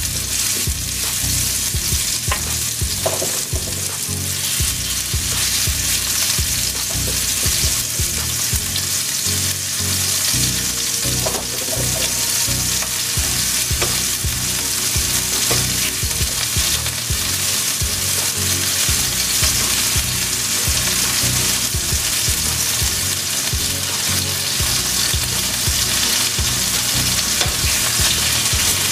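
Pieces of venison backstrap searing in hot olive oil in a cast iron skillet: a loud, steady sizzle, with a few faint clicks as pieces are laid in.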